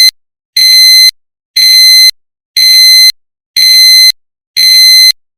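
Honda seatbelt reminder chime: a high-pitched electronic beep, each about half a second long, repeating about once a second. It signals that the vehicle is running with a seatbelt unfastened. The beeping stops about five seconds in.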